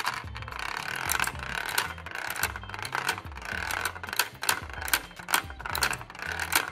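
LEGO pinball table in play: plastic flipper beams clacking as they are flicked and a plastic ball rattling over the LEGO studs and knocking against the brick walls, in many sharp irregular clicks.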